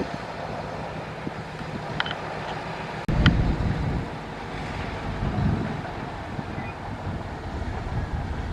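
Heavy earthmoving machinery's diesel engine running steadily, with two sharp metallic clanks about two and three seconds in and a sudden surge in engine noise at about three seconds.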